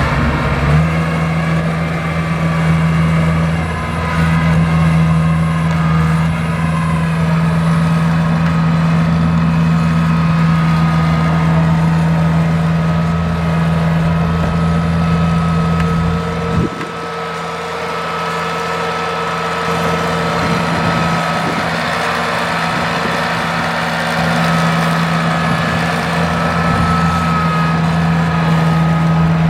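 Kubota DC-70 combine harvester running under load, a steady diesel engine note with a steady high whine over it. About halfway through the deep part of the sound drops and it gets somewhat quieter, then the engine note strengthens again near the end.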